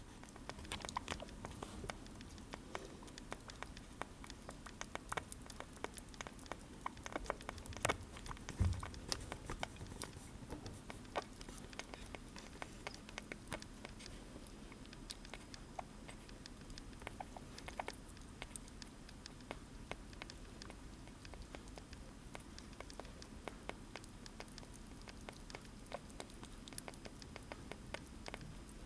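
Sugar glider chewing blueberries: a steady run of quick, irregular little clicks, with one louder knock about nine seconds in.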